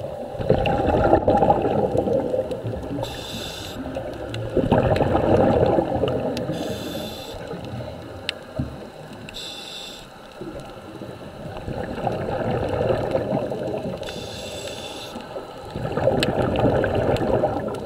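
Scuba regulator breathing under water: long bubbling exhalations alternate with short hissing inhalations, one breath every four to five seconds.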